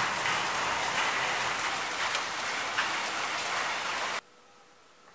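Heavy rain pouring down onto the ground and foliage as a steady, dense hiss. It cuts off abruptly about four seconds in, leaving only a faint quiet background.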